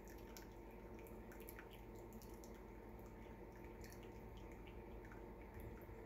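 Brewed coffee trickling from a glass pour-over cone into a mug, faint scattered drips over a steady low hum.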